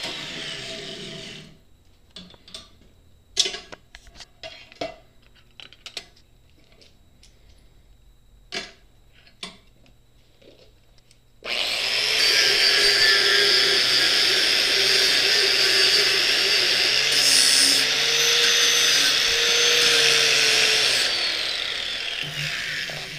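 An angle grinder runs against the steel frame for about ten seconds, starting about halfway through, its tone wavering under load, then spins down with a falling pitch. Before it come scattered knocks and clicks.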